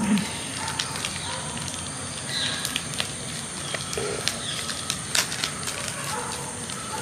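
Scattered light clicks and rustling as the drone's small accessories, such as charging cables, are handled and unpacked.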